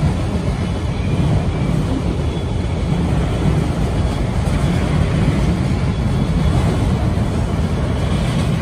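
Freight train of autorack cars rolling past, a steady low rumble of wheels on rail.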